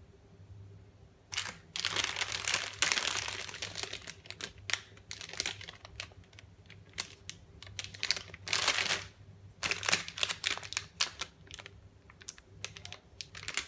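Plastic wrapper of a packet of chocolate-filled crêpes crinkling and crackling as it is handled and turned over, in irregular bursts, loudest about two to three and a half seconds in and again around nine seconds in. A low steady hum runs underneath.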